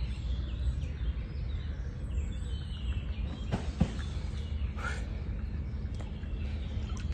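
Outdoor ambience: a steady low rumble with a few short bird chirps, about three and a half and five seconds in.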